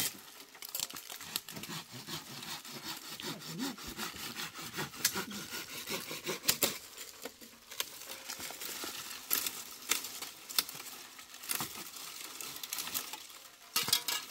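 Dry branches and twigs being snapped and broken by hand: a run of irregular sharp cracks, with rustling of dead wood and leaves in between.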